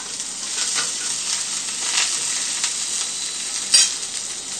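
A tadka of mustard seeds, garlic, chilli, curry leaves and coriander sizzling in hot oil in a small pan: a steady sizzle with scattered crackles. A single sharp crack stands out a little before the end.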